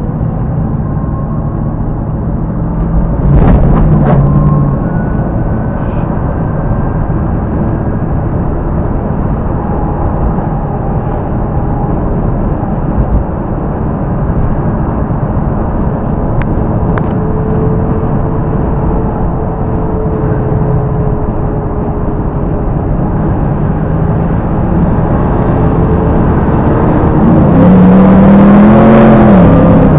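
1967 Chevrolet Camaro's engine running as the car drives along, with road noise. It revs up briefly about three seconds in and again, louder and rising in pitch, near the end.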